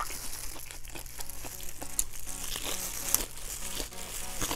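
Close-mic'd biting and chewing of crisp deep-fried chicken skin, a string of sharp crackly crunches, over soft background music.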